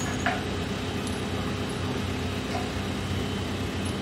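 A telehandler's diesel engine running steadily at idle while it holds a steel rafter on its boom.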